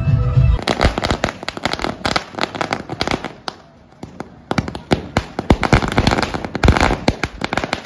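Firecrackers going off on the ground in a rapid run of sharp cracks, with a short lull about three and a half seconds in before the cracking resumes.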